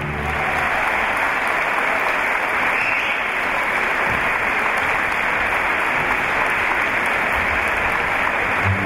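A large audience applauding steadily in the gap between two sections of the dance music.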